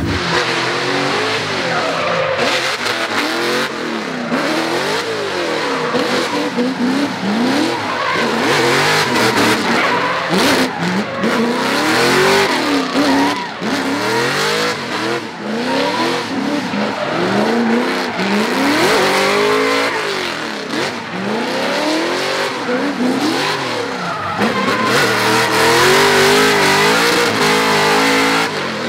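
Corvette drift car's engine revving up and down again and again as it drifts. Its rear tyres spin and squeal against the pavement the whole time.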